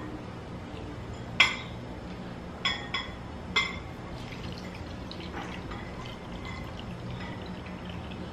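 Water poured from a drinking glass into a container of sugar and salt, with a few sharp clinks of glass in the first few seconds, then a faint, steady trickle.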